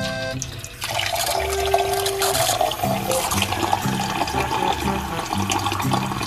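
A thin stream of water pouring into an empty white plastic electric kettle, a steady splashing fill that starts about a second in.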